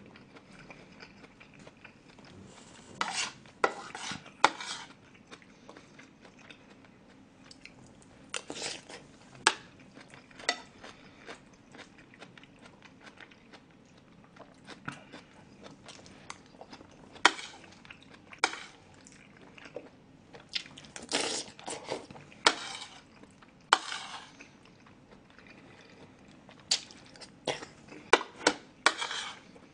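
Close-miked eating: a metal spoon clinking and scraping against a dish in sharp, irregular clicks, between bouts of chewing seafood rice bowl.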